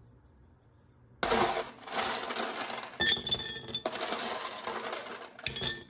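Kitchen cooking noise: a loud, dense rush that starts suddenly about a second in, with metallic clinks ringing through it a few times, and it cuts off abruptly.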